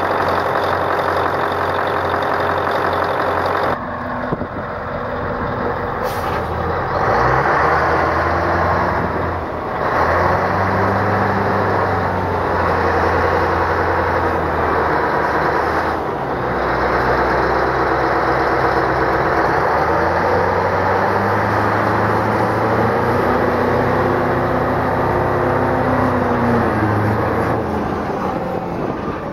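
Moxy MT40 articulated dump truck's diesel engine idling steadily for the first few seconds, then the truck driving under load, its engine note rising and falling as it revs.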